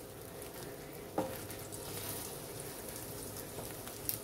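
Beaten eggs for an omelette sizzling quietly in a frying pan on medium heat, setting as they cook. A light tap sounds about a second in and another near the end.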